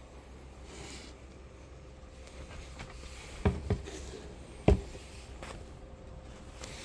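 A few sharp knocks or taps, the loudest a quick pair about three and a half seconds in and one more about a second later, over a low steady hum.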